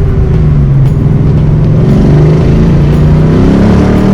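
1986 Mustang GT's 5.0-litre V8 running loud under way, its pitch holding steady and then climbing a little as it pulls. The note is coloured by a bad exhaust leak.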